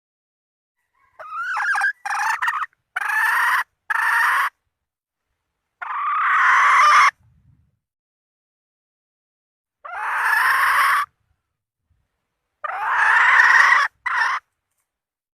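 Red junglefowl hen calling: a quick run of four short calls, then three longer calls a few seconds apart and a last short one. It is the hen's call to a cock, as used on lure recordings for trapping junglefowl.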